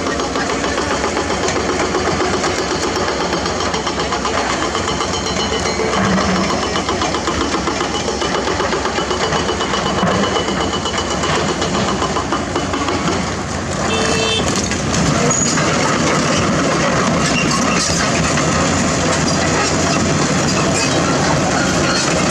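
Excavator-mounted hydraulic breaker hammering hard limestone in rapid, steady blows over the excavator's diesel engine. About fourteen seconds in, the hammering breaks off briefly and a steadier engine sound carries on.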